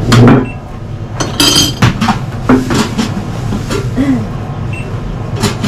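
Plates and serving utensils clinking and clattering: a loud knock at the start, then a string of sharp clinks, one about a second and a half in ringing briefly.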